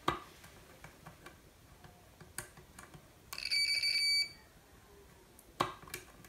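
Digital multimeter's continuity buzzer giving one steady high beep about a second long, about halfway through, as the test probes make a closed circuit on a fuse holder. Sharp clicks of the metal probe tips tapping the contacts come before and after it.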